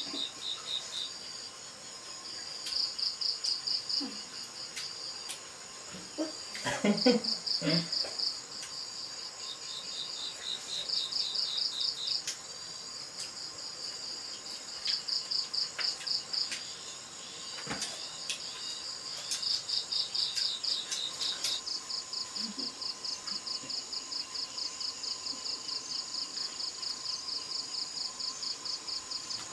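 Crickets chirping in rapid pulsed trills, in bouts of a second or two that run into one continuous pulsing chirp in the last third. A brief lower sound comes about seven seconds in.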